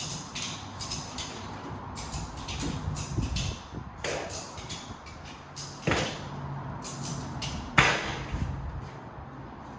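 Metal clicking and rattling in short runs, with three sharp metallic bangs, the loudest near the end.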